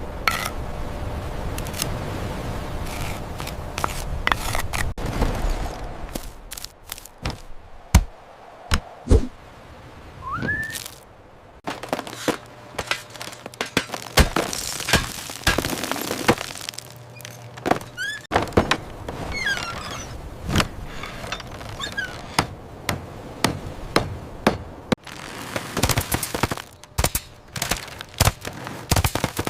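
Many irregular knocks, taps and clatters of small wooden pieces and hand tools, from building a miniature wooden barn, with a few short rising whistles in the middle.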